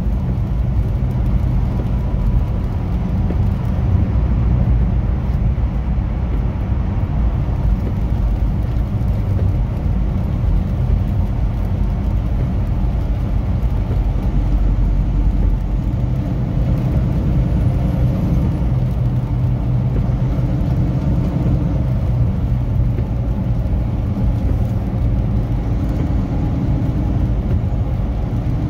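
Semi truck's diesel engine running steadily at highway speed, heard inside the cab with road and tyre noise.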